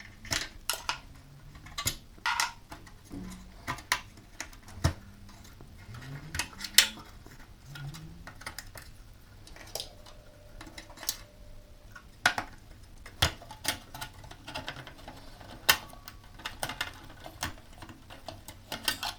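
Plastic and metal parts of a small-form-factor desktop PC being unclipped, pulled out and set down: irregular sharp clicks and knocks throughout.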